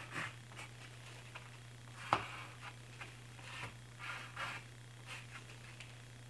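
Pencil marking short lines on pine boards, heard as a series of brief scratchy strokes with a sharp click about two seconds in, over a steady low hum.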